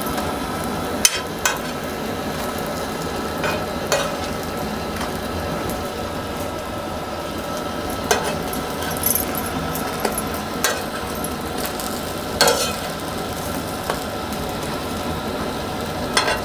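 Semolina-coated brinjal slices sizzling steadily in shallow oil on a flat tawa. A metal spoon clicks and scrapes against the pan several times as the slices are turned.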